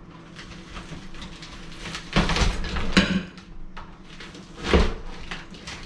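Faux-brick wall panel being struck from behind and breaking loose: dull knocks and cracking, with three louder blows about two, three and nearly five seconds in.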